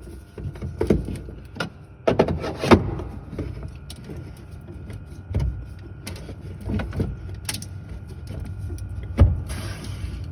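Plastic knocks, clicks and scraping as a refrigerator water filter cartridge is pushed into its housing and twisted into place, with a loud knock near the end. A faint steady whine runs underneath and stops at that last knock.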